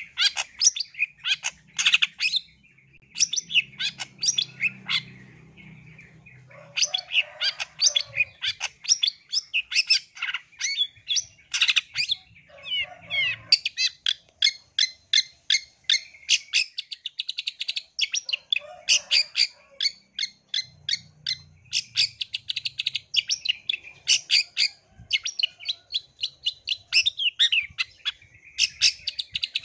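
Long-tailed shrike (cendet) singing in full voice: a fast run of sharp, chattering notes, several a second, with brief lulls in the first few seconds.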